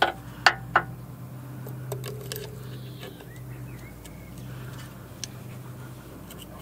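Sharp metallic clicks of snap-ring pliers catching on the retaining ring at a car AC compressor's clutch hub. Three loud clicks come in the first second, then a few fainter ticks, over a steady low hum.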